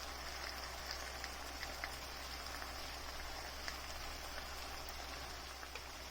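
Onion, bell peppers and tomatoes sautéing in a pot of leftover chicken-frying oil: a steady soft sizzle with scattered small pops.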